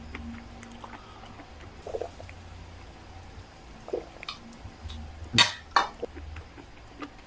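Close-up eating sounds: chewing and mouth smacks with scattered soft clicks, and two loud sharp smacks in quick succession a little past halfway.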